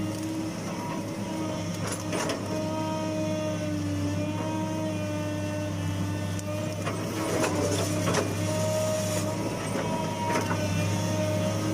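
Hitachi UH045-7 excavator's diesel engine running with a steady hum and a whine from the hydraulics that shifts slightly in pitch as it works. A few short knocks come through, about two seconds in, twice between seven and eight seconds in, and again near ten seconds.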